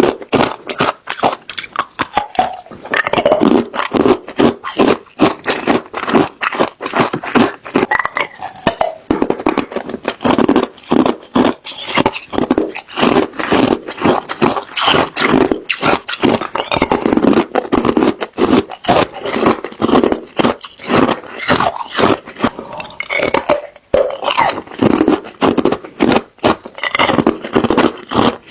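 Ice being bitten and chewed close to the microphone: a dense, continuous run of sharp crunches and cracks.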